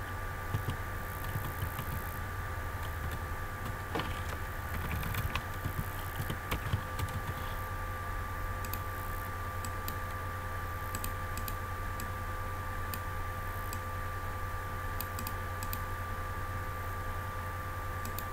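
Computer keyboard keys tapped in short irregular runs, mostly in the first seven seconds, then scattered single clicks. Underneath runs a steady low hum with a faint high-pitched tone.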